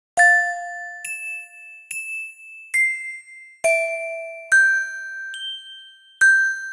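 Music of bell-like chime notes struck one at a time, eight of them at an even pace of a little more than one a second, each ringing on briefly. The notes start out of silence just after the beginning.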